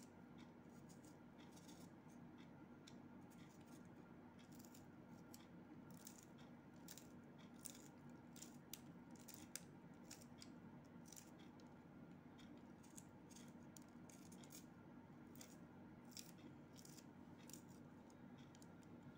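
Small kitchen knife chopping a green chilli on a plate: quiet, irregular crisp clicks as the blade cuts through and meets the plate, over a faint steady hum.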